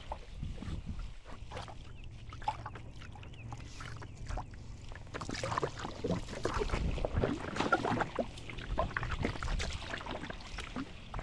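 Paddling a 10-foot Pelican kayak: irregular splashes and drips from the paddle blade and water lapping at the hull, busier and louder from about halfway through, over a steady low wind rumble on the microphone.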